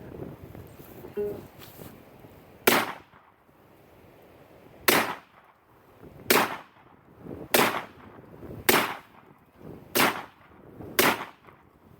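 Seven rifle shots fired in quick succession, the first about two and a half seconds in, then one roughly every second or so.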